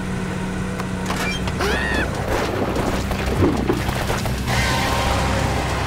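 Cartoon action soundtrack: background music with sound effects, among them a short rising-and-falling squeal about two seconds in and a shift to a noisy rush about four and a half seconds in.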